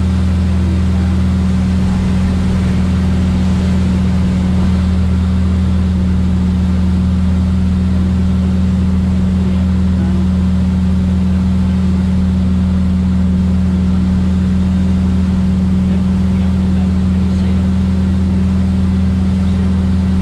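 1979 Mooney M20K's turbocharged six-cylinder engine and propeller droning steadily in flight, heard inside the cockpit. Deep unchanging hum with no change in power.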